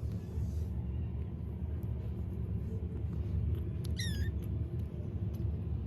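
Kitten purring: a steady low rumble, close up. About four seconds in, one short high squeak with a dipping pitch.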